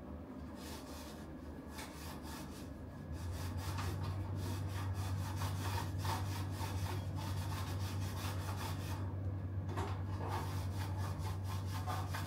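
Microfiber cloth rubbing back and forth over the bed of a Zipp 808 carbon rim in quick, irregular strokes, wiping off tubular gluing-tape residue. A steady low hum comes in about three seconds in.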